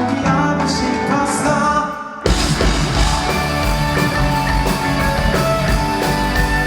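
A live rock band playing a song on stage. A lighter passage drops away briefly, then the full band comes in hard about two seconds in, with drums, bass and guitars.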